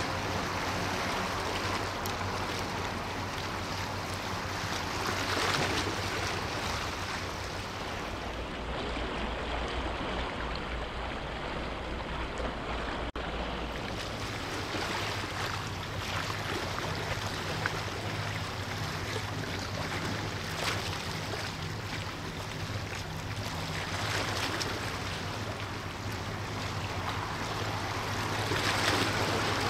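Waves washing and wind on the microphone, over the low steady hum of a ship's engines.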